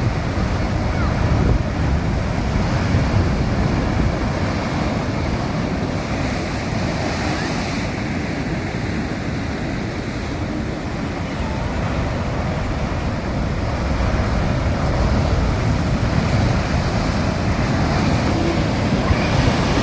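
Sea waves breaking and washing on the shore, a steady surf noise that swells and eases, with wind rumbling on the microphone.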